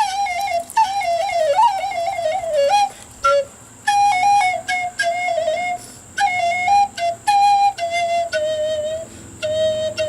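A plastic pre-band recorder-type flute played in short melodic phrases of quick notes with brief pauses, moving into longer, steadier notes and ending on a held note.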